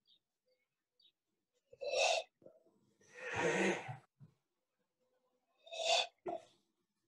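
A person's breath: three short, breathy bursts, about two seconds in, in the middle, and near the end, the middle one the longest.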